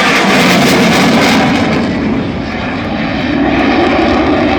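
Military aircraft flying overhead, its engine noise loud and dense, easing a little about two seconds in and building again.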